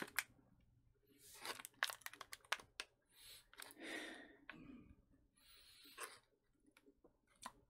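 Plastic MRE food packaging being handled: crinkling and tearing in a few short bursts, with scattered sharp clicks.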